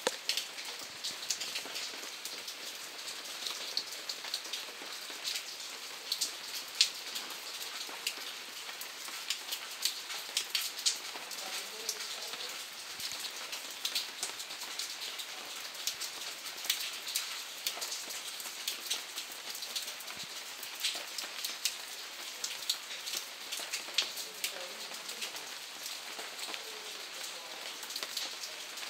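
Rain falling: a steady hiss dotted with many sharp individual drop hits close by.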